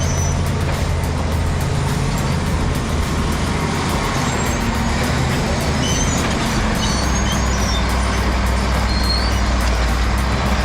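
Bulldozer's heavy diesel engine running steadily under load, with a few short high squeaks about halfway through.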